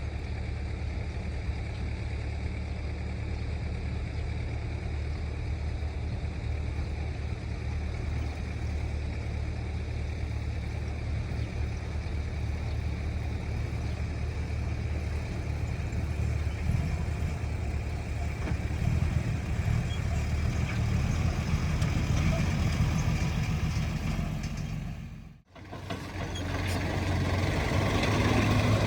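Excavator's diesel engine running steadily with a low drone, getting louder and busier about two-thirds of the way in. It cuts out abruptly for an instant near the end, then comes back louder.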